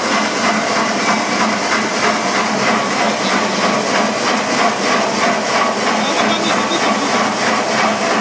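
Industrial saw cutting through a thick steel round bar, a steady hissing grind with a fast, even pulse, while an air-driven micro-lubrication nozzle sprays oil mist onto the cut.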